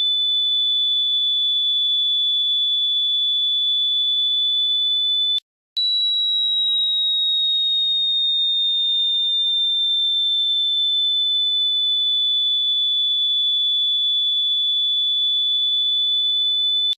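A loud, steady, high-pitched electronic tone, a single pure note with a slight wobble, played as an annoying prank sound. It cuts out for a split second about five and a half seconds in, then comes back a little higher and slowly settles lower.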